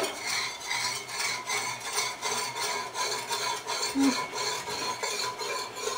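A whisk scraping rhythmically, about three strokes a second, across the bottom of a pan in simmering red wine, loosening the browned bits while deglazing.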